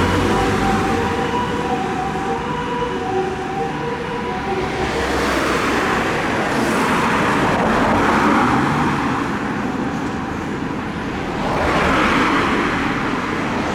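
Japanese ambulance two-tone "pee-po" siren from a TCD e-deck siren amplifier, a high and a low note taking turns and fading out about four seconds in. Road traffic noise then swells and falls twice as vehicles pass.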